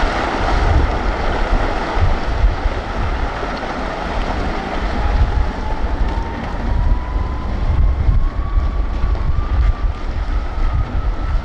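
Wind buffeting the microphone over a low rumble of loose blasted rock sliding and rolling down a quarry rock pile. A thin whine rises slowly in pitch.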